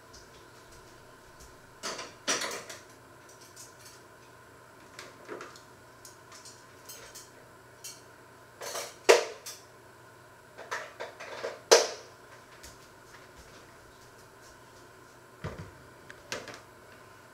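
Kitchen clatter of utensils and dishes being handled: a string of separate clinks and knocks, loudest about nine and twelve seconds in, with a low bump near the end.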